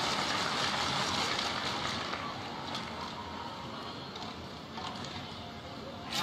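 Steady noise of an ice-arena crowd, louder for the first two seconds and easing after that, with a few faint clicks.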